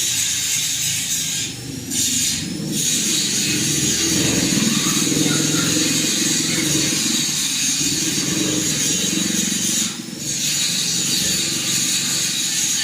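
Panasonic F-560Z2 56-inch industrial ceiling fan running: a steady airy rush from the blades over a lower rumble from the motor. The rush dips briefly a couple of times near the start and once near the end.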